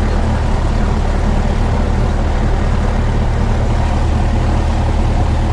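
Light single-engine airplane's piston engine idling steadily, heard from inside the cockpit while holding short of the runway.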